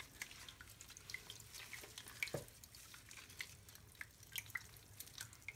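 Water dripping into a bathroom sink: faint, scattered small drips and plinks at an uneven pace.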